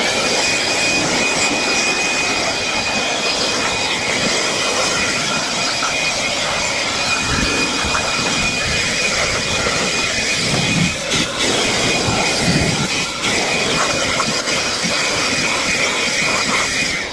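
Ryobi cordless leaf blower running at steady full speed with a high whine over the rush of air, blowing debris and snake skins out of a generator enclosure. It switches on at the start and cuts off just before the end.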